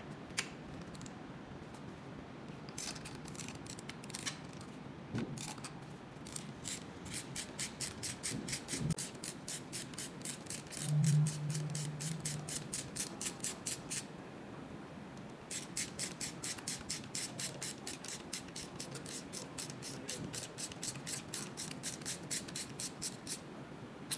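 Ratchet wrench with a hex bit clicking at about five clicks a second as the handlebar clamp bolts are turned out, in two long runs with a short pause between. A brief low hum sounds about halfway through.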